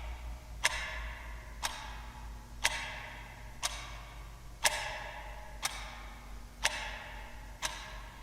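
Clock ticking steadily, about one tick a second, alternate ticks ringing a little longer in a tick-tock pattern, over a faint low hum.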